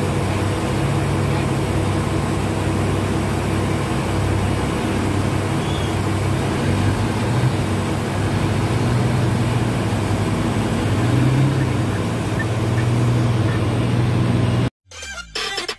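Large diesel haul truck engine, a Komatsu HD785-7, running with a steady low drone while the truck lowers its dump body and pulls away. Near the end the engine sound cuts off abruptly, and a brief electronic sound with falling pitch follows.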